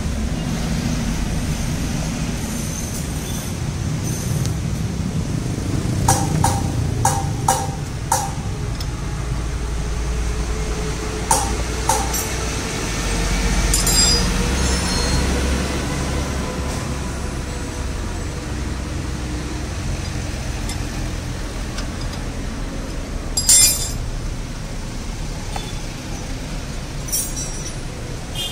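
Scattered sharp metal clinks of a wrench and flywheel puller on a Honda Vario's alternator rotor. A quick run of about five comes around six seconds in, and a louder single clink comes near the end, over a steady low background rumble.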